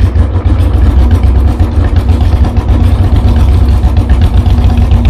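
A loud engine running steadily at idle: a low rumble with a fast, even pulse.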